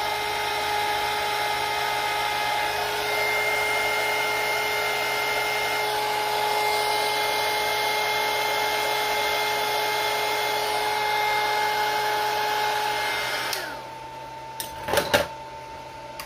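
Hot-air heat gun blowing steadily with a fan whine while shrinking heat-shrink tubing on an LED wire lead. It switches off near the end, its whine sliding down as it winds down, followed by a couple of sharp knocks.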